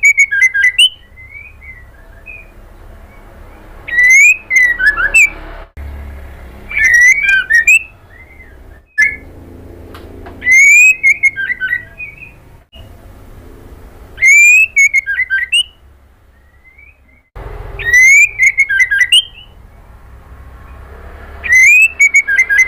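Female white-rumped shama singing in a cage. Loud song phrases repeat every three to four seconds. Each phrase is a rising whistle that breaks into a quick run of high, sharp notes, with soft short calls in the gaps.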